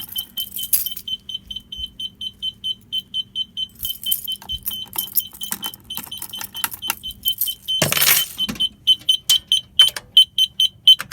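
A fire alarm system beeping at a high pitch, about four beeps a second, under keys jangling and the clicks of key switches and panel parts being worked. There is a loud clatter about eight seconds in, and the beeping grows louder near the end.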